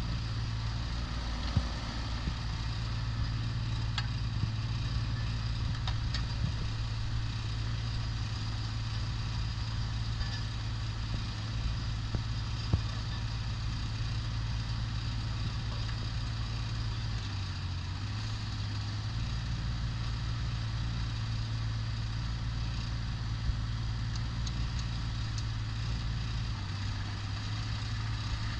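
JCB 8014 mini excavator's diesel engine running steadily while the boom, arm and bucket are worked, with a brief dip in the engine note about two-thirds of the way through and a few light clicks.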